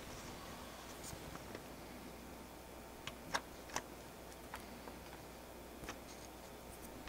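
A few light, sharp clicks and taps of metal parts being handled while a bicycle headset press is assembled. Three come close together about three to four seconds in, with fainter single ticks before and after.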